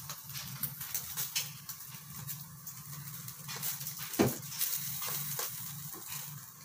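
Banana leaves crackling and sizzling as they char over a gas stove flame, scattered crackles over a steady hiss and low hum of the burner. A sharper knock about four seconds in as the leaf-wrapped tins are turned.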